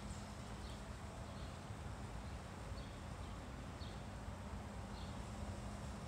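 A small bird chirping in short high notes, roughly once a second, over a steady low hum and rumble.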